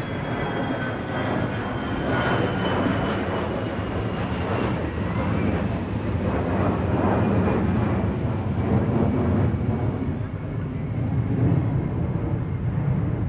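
Twin-engine jet airliner passing overhead: a steady engine roar with a thin whine that slowly falls in pitch as the jet goes by.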